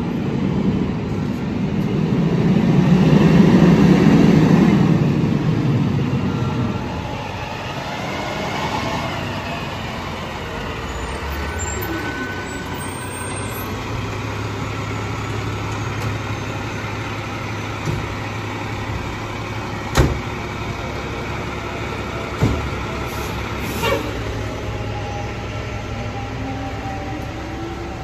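Fire department ladder truck's diesel engine rumbling as it drives up, loudest a few seconds in, then idling with a steady low hum. Several sharp knocks come in the second half.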